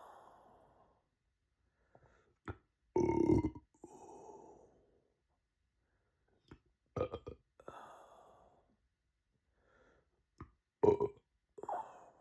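A person burping three times, about four seconds apart, each burp followed by a short breathy tail. The first burp is the longest and loudest.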